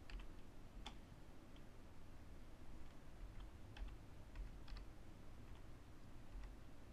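Faint, irregular keystrokes on a computer keyboard as a few short lines of text are typed, over a low steady hum.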